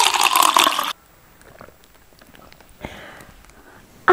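Water pouring and splashing into a glass, a loud rushing that cuts off abruptly about a second in. After it only faint background remains, with a soft tap near the end.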